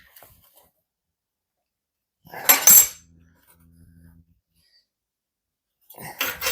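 Small steel pieces clinking and clattering as they are handled and set against one another on a metal welding table, in two short bursts, the first about two and a half seconds in and louder, the second near the end.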